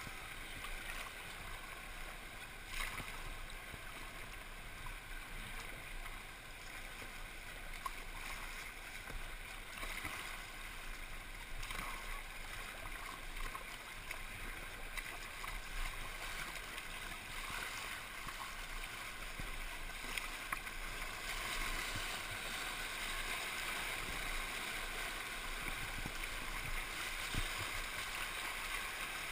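Fast, flood-swollen river water rushing and churning around a kayak, with a few short paddle splashes. It gets a little louder in the second half.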